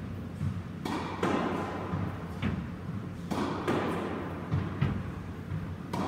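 Squash ball smacked by a racket and rebounding off the court walls: sharp knocks, often in quick pairs a few tenths of a second apart, each ringing briefly in the court. Softer thuds of the player's shoes on the wooden floor run between the hits.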